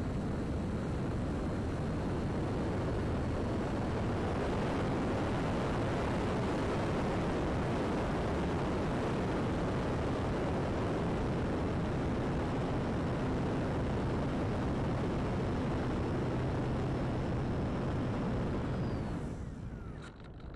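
Steady rush of airflow noise on a radio-controlled V-tail glider's onboard camera microphone in flight, with a faint high whine above it. The rush drops away near the end.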